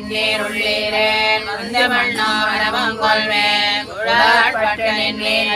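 Women chanting a devotional recitation (parayanam) together in a sung style, in long held phrases of a second or two each with short breaks between them.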